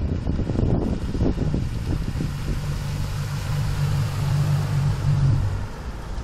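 Sea-Doo personal watercraft's engine running steadily as it approaches across the water, its note dropping away near the end as it slows.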